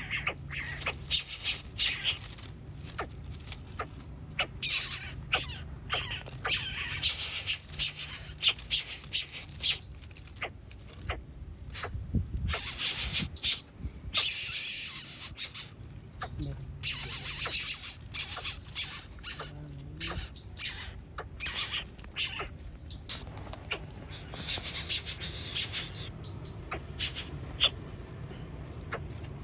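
Nestling birds giving shrill, rasping squeals in rapid repeated bursts, typical of chicks begging in the nest.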